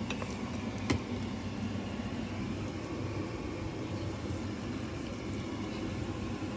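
Serving spoon knocking once against the cookware about a second in, over a steady low mechanical hum.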